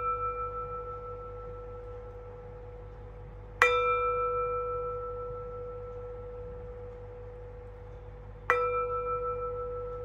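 Metal singing bowl struck twice with a wooden mallet, about five seconds apart, each strike ringing out in a steady low hum with higher overtones that wavers and slowly fades. The ring of a strike just before is still dying away at the start. The bowl is struck once per deep breath to pace a breathing exercise.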